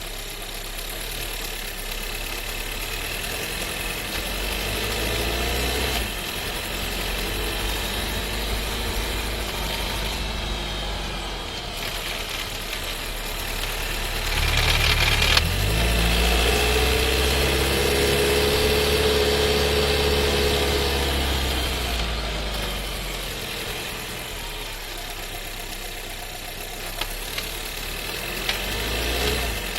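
Skoda Scala's 1.5 TSI four-cylinder petrol engine and seven-speed DQ200 dry-clutch DSG gearbox heard from inside the cabin while driving. The car rattles, and the owner takes this rattle for a transmission fault on a car only 3500 km old. About halfway through the engine note rises and falls with a burst of short knocks.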